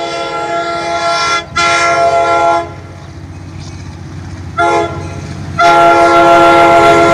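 Tri-Rail diesel locomotive's multi-note air horn sounding the grade-crossing signal: a long blast, a second long blast, a short one, then a final long blast held as the train reaches the crossing, over the train's steady rumble.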